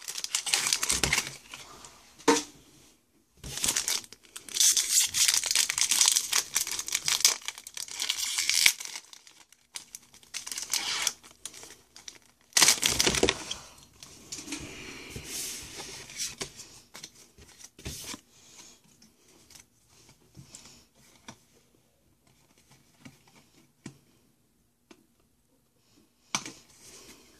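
Pokémon trading card booster pack being torn open and its foil wrapper crinkled, in several bursts of tearing and crackling over the first fifteen seconds or so, then fainter rustling of the cards being handled.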